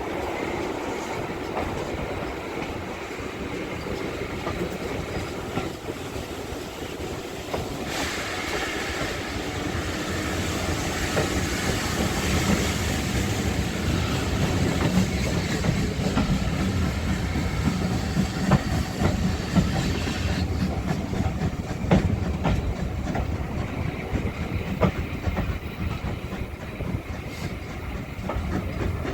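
Steam-hauled heritage passenger train running at speed, heard from on board: a steady rumble of the coaches with wheels clicking over rail joints. A hissing rush swells through the middle.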